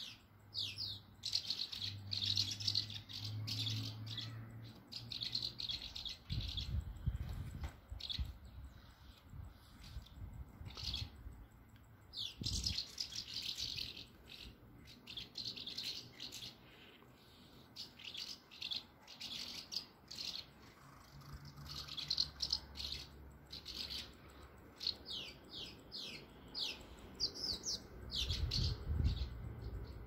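Many swallows twittering in flight: rapid high chirps and short gliding notes in quick clusters with brief pauses.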